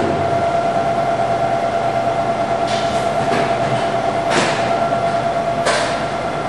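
Brew vacuum furnace's vacuum pump running steadily, a constant mechanical hum with a steady whine in it, while it pulls the air out of the chamber. A few brief knocks sound over it.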